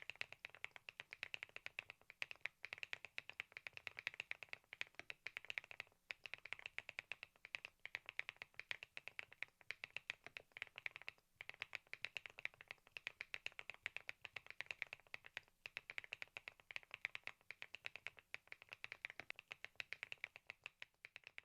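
Rapid typing on a Thinkway TAUCHE.S 501 full-aluminium mechanical keyboard: a fast, continuous stream of key clicks, with a few brief pauses between runs of typing.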